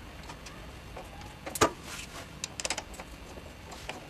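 Light clicks and clinks of metal tools and brake parts being handled, with one louder knock about a second and a half in and a quick run of ticks near three seconds.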